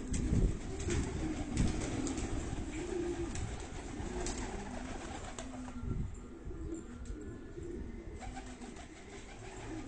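Domestic pigeons cooing in a loft, many low overlapping coos, with a few dull thumps in the first two seconds.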